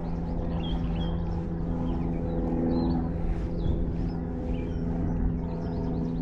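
Songbirds chirping repeatedly over a steady low hum with overtones.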